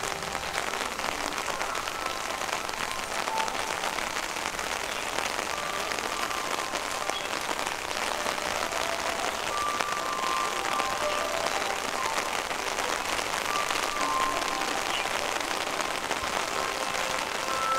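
Steady rain falling, a dense patter of drops hitting surfaces, with faint short tones in the background.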